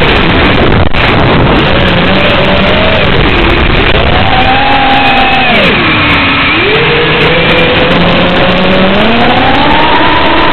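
FPV quadcopter's brushless motors and propellers whining under loud hiss. The pitch sweeps up and down with the throttle, dips twice, then climbs to its highest near the end.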